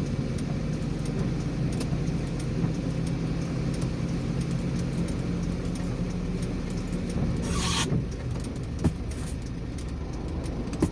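Car engine and road noise heard from inside a moving car: a steady low drone that falls away about eight seconds in, just after a short hiss, with small scattered clicks throughout.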